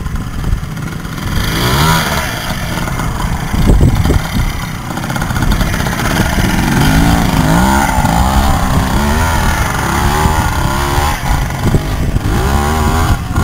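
Vintage two-stroke trials motorcycle climbing a steep rocky hill, its engine revving up and down again and again as the rider works the throttle.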